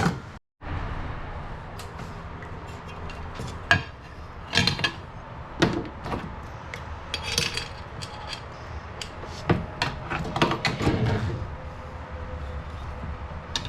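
Hand tools and small metal parts being handled and set down: irregular clinks and knocks, a handful of them sharper and louder, over a steady low background.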